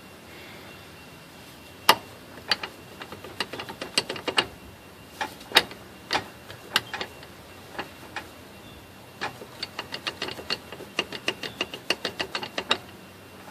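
Sharp metallic clicks from the drivetrain of a 1988 Jeep Grand Wagoneer, the clicking noise whose cause is being shown. They come singly and in irregular clusters at first, then in a quick run of many clicks near the end.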